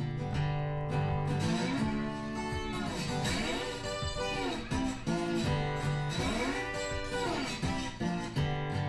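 Background music: guitar playing, with notes bending up and down in pitch.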